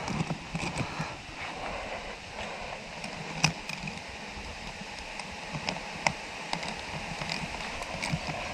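Faint work noise in a trench: scattered small clicks and scrapes over a steady hiss.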